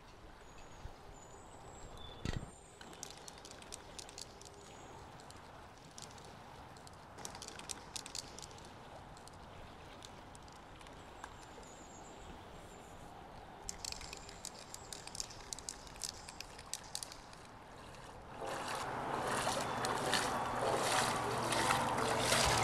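Faint riverside ambience: water trickling and sloshing, with scattered small clicks and knocks and a few faint bird chirps. Music comes in about three-quarters of the way through and grows louder.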